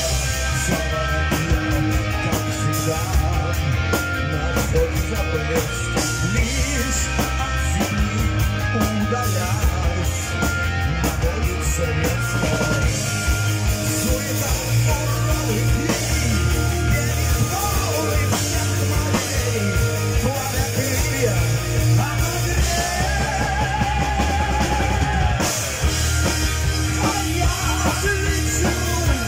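Live heavy metal band playing: a male singer on a handheld microphone over distorted electric guitars, bass guitar and a pounding drum kit.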